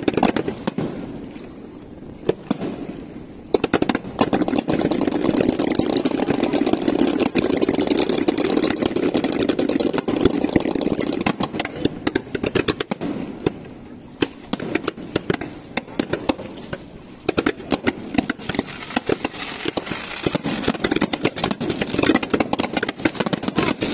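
Fireworks display: rapid crackling and popping of bursting shells in dense volleys. The volleys are heaviest from about four seconds in to about eleven, and again near the end.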